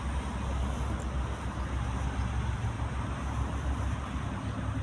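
Steady toll-road traffic noise: a continuous low rumble and hiss from passing vehicles.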